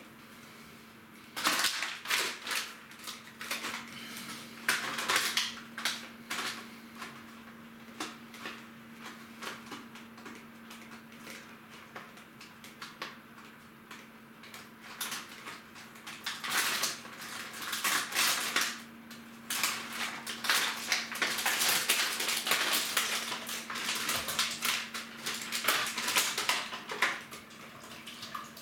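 Dishes, pots and cutlery clattering as they are handled at a kitchen sink: quick, irregular clinks and knocks, thickest in the second half, over a steady low hum.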